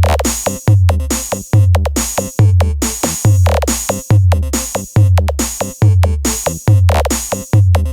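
Electronic DJ remix music: a pounding drum-machine beat with heavy bass kicks at about two a second and sharp percussive hits.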